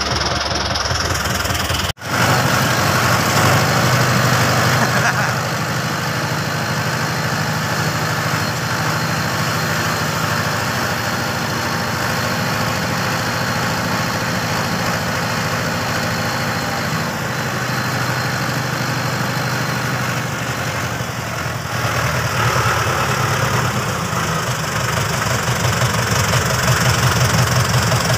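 Small farm tractor engine running steadily while towing a trailer, with a rapid, even beat. The sound drops out for an instant about two seconds in.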